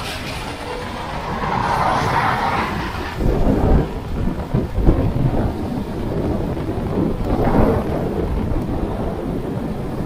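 Wind buffeting the microphone of a camera on a moving bicycle: a low, uneven noise that swells in gusts, strongest a few seconds in.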